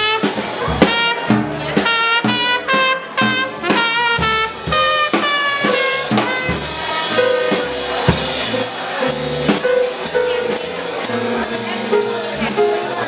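Live jazz trio playing: a trumpet plays phrases over a walking upright bass and a drum kit with frequent cymbal and snare strikes.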